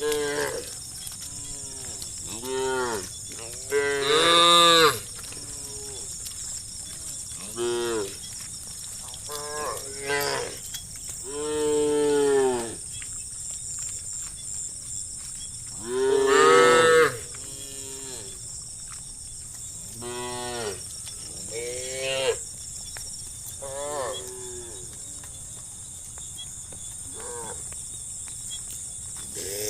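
Cattle mooing over and over, many separate calls, some long and drawn out, each rising and then falling in pitch. The loudest calls come about four and sixteen seconds in.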